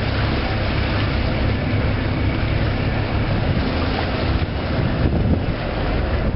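A tuna longliner's engine running steadily, with wind buffeting the microphone and water washing along the hull.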